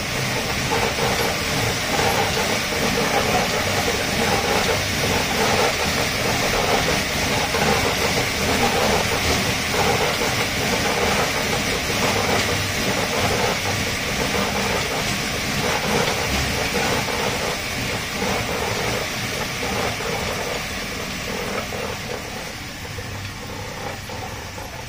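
Dog treadmill rattling and rumbling under a dog running on it, its belt and roller driven by a fast, steady beat of paw strikes. It gets quieter over the last few seconds.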